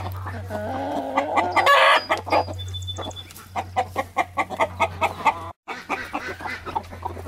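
A flock of chickens, Black Australorps among them, clucking with many short repeated calls. A longer drawn-out call comes about half a second in. There is a brief dropout in the sound just past halfway.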